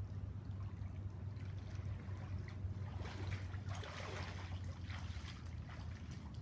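Swimming-pool water trickling and lapping over a steady low hum. The splashing swells for a few seconds in the middle and then eases.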